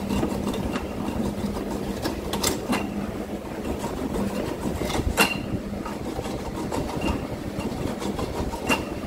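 Small electric coconut grater running with a steady hum and a scratchy grinding as a coconut half is pressed against its spinning scraper. A few sharp clicks come through, the loudest about halfway.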